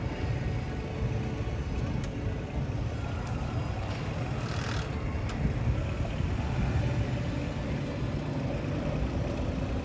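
Steady low rumble of heavy vehicle or machinery engines running, with a short hiss about four and a half seconds in.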